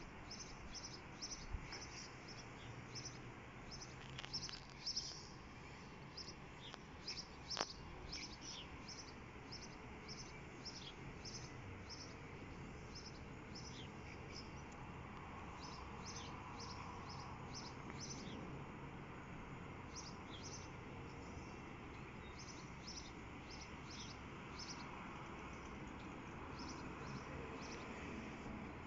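Small birds chirping in a long run of short, high calls, pausing now and then, over faint steady background noise. There is a sharp click about seven and a half seconds in.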